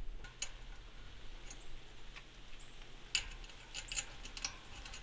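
Scattered faint clicks and taps of the cart's steel handle and coupler parts being handled, the loudest just after three seconds in.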